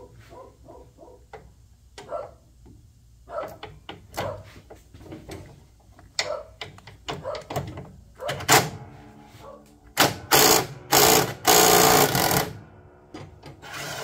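Cordless impact wrench hammering on a bolt under a lawn tractor's mower deck in several loud bursts, the longest about two seconds, after some seconds of light clicks and clinks as the socket is fitted.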